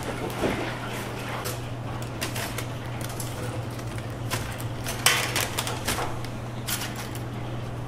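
Metal tongs clicking and paper bags rustling as freshly fried chicken pieces are packed, with a sharp rustle about five seconds in, over a steady low hum of kitchen equipment.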